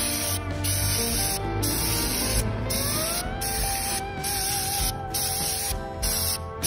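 Paint spray hissing in bursts, with short breaks about once a second, as a catalytic converter's shell is coated.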